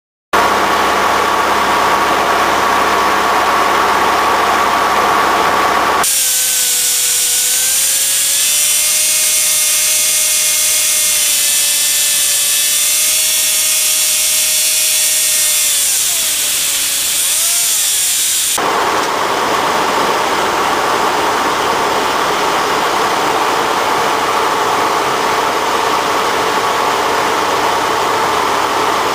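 Engine and propeller of a Cessna 170B floatplane running steadily, heard from inside the cockpit. About six seconds in the sound changes abruptly to a hiss with a steady whining tone. That tone bends and stops about eighteen seconds in, when the steady engine drone returns.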